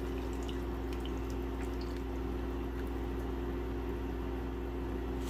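Canned coconut milk being poured into a pot of simmering chicken curry, with a few small faint ticks, over a steady low hum.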